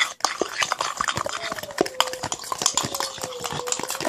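A utensil stirring a mix of glue and shaving cream in a bowl, with rapid, irregular clicks and scrapes against the bowl.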